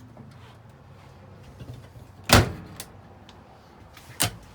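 Two sharp knocks inside a travel trailer, the louder about two seconds in and a lighter one near the end: a door being handled and shut.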